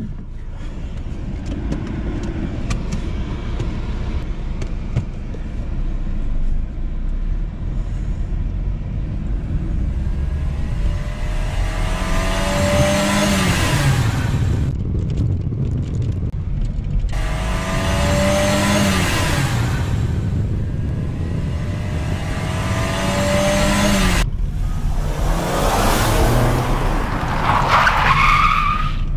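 A Volvo car's engine heard from inside the cabin while driving. A few light clicks come at the start, then the engine note climbs and falls back about four times as the car accelerates and slows.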